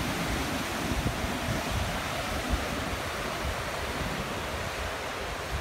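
Ocean surf breaking and washing over rocks, a steady hiss of churning white water.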